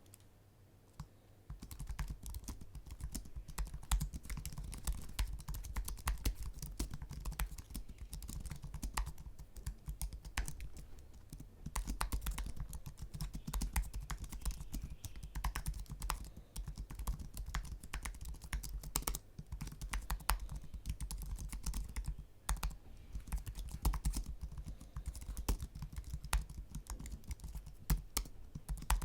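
Typing on an Apple Magic Keyboard: a fast, continuous run of light key clicks, with brief pauses between bursts, starting about a second and a half in.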